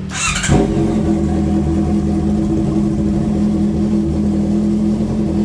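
Honda CB650R's inline-four idling steadily and loudly through an IXIL Carbon Extreme exhaust with its silencer insert removed, after a brief hissing burst right at the start.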